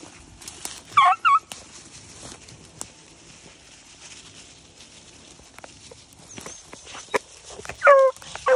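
Beagle hounds baying while running a trail. There are two short, falling yelps about a second in, then a couple of longer bawls near the end.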